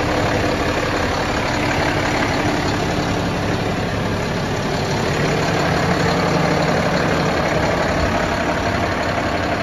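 A 2011 Peterbilt 348 floater's Paccar PX-8 diesel engine idling steadily.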